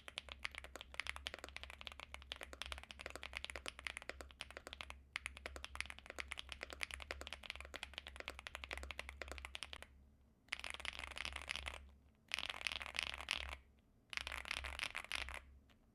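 Typing on an Epomaker Feker Galaxy80 mechanical keyboard: a fast, dense run of keystrokes for about ten seconds, then three shorter bursts of typing with brief pauses between them.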